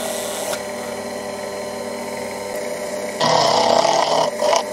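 Proxxon FF 230 mini mill's spindle running steadily with a carbide end mill spinning. About three seconds in, the cutter bites into the workpiece and a loud, harsh cutting noise starts, breaks off briefly and comes back. The noise comes from running the cutter at about 2200 rpm, below its rated speed and feeds.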